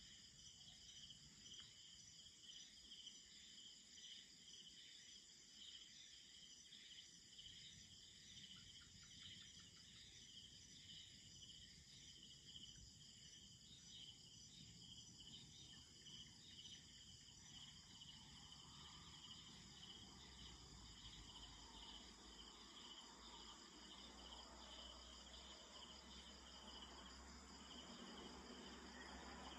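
Faint chorus of night insects: a pulsing high trill with steady higher ringing tones. A faint low hum comes in about two-thirds of the way through.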